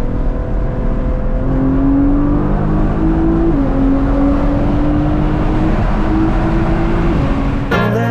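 Nissan GT-R's twin-turbo V6 heard from inside the cabin under way, its pitch climbing slowly, dropping suddenly about halfway through, then climbing again. Music with a beat comes in right at the end.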